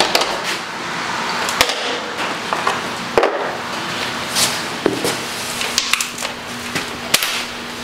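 Scattered sharp clicks and knocks of hand tools and sockets being handled on metal engine parts, irregularly spaced over a steady background hiss.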